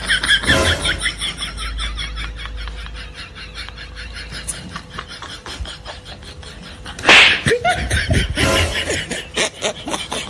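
People laughing, in a quick run of repeated pulses, with a short loud outburst just after the start and another about seven seconds in.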